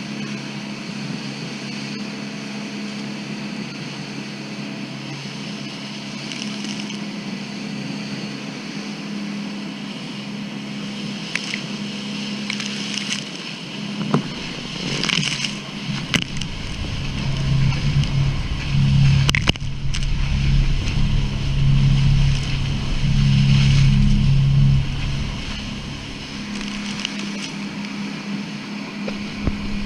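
Boat engine running with a steady hum. From about halfway, rumbling water and wind noise surges over it in swells.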